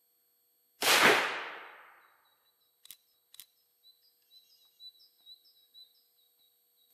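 A single shot from a Remington Old Model Army cap-and-ball percussion revolver, loaded with 15 grains of Swiss 3F black powder behind a .457 round ball, about a second in, its report fading away over about a second and a half. Two sharp clicks follow, then small birds chirping.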